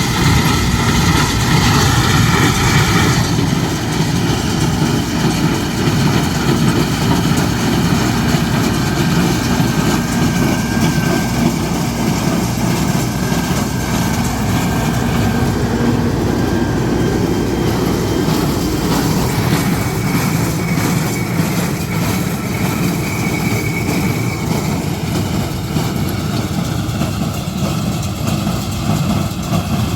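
Tractor engine running steadily while pulling a hay baler through the field.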